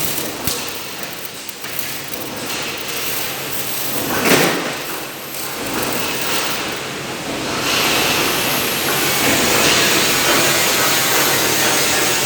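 Robotic welding cell at work: a steady mechanical and hissing noise, with a brief louder swell about four seconds in, growing louder and steadier about eight seconds in.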